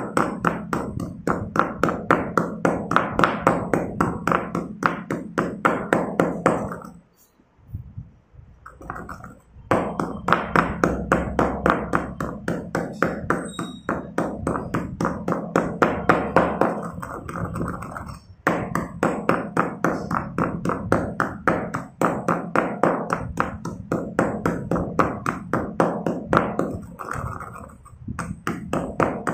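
A stone pestle pounding and grinding crushed chalk in a stone mortar: rapid, steady knocks with a gritty crunch, several strokes a second, broken by a pause of a couple of seconds about a quarter of the way in and two brief breaks later.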